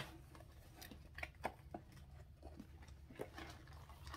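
Faint handling noises from a long cardboard kit box being moved about on a wooden table: a handful of light, scattered taps and clicks over a low steady hum.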